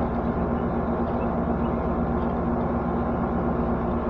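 Steady machine hum with several constant low tones, unchanging throughout.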